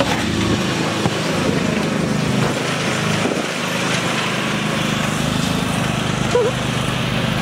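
Riding lawn mower's small engine running steadily as it is driven.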